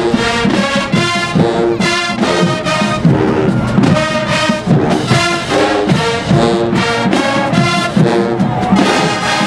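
College marching band brass section playing loud chords in short, repeated phrases.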